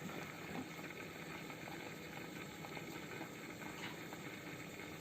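Aquarium water bubbling steadily, a continuous fizz of many small pops from the tank's air pump or filter.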